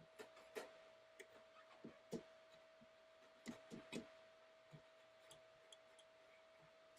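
Near silence with faint, scattered light clicks and taps of small tools working on a circuit board during pad cleanup, the clearest a few about two seconds in and a cluster around three and a half to four seconds. A faint steady tone sounds underneath.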